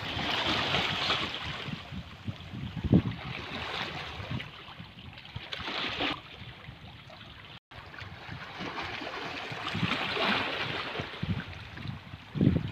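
Small sea waves lapping and splashing against rocks at the water's edge, a steady wash of water. A few low thumps stand out, about three seconds in and near the end.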